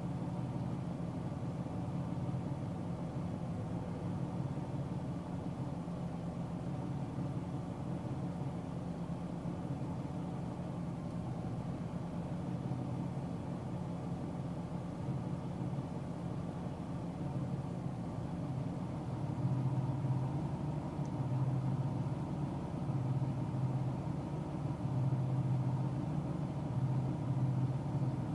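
Car driving at highway speed, heard from inside the cabin: a steady low rumble of engine and tyres on the road, louder in stretches over the second half.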